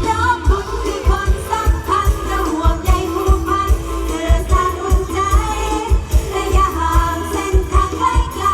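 Live Isan luk thung–mor lam band music with singing over a steady, driving drum beat.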